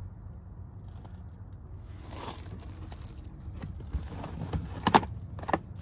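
A hand rubbing and pressing a car door panel's vinyl trim, giving a few sharp clicks and scrapes in the second half, the loudest about five seconds in. Under them runs a steady low rumble.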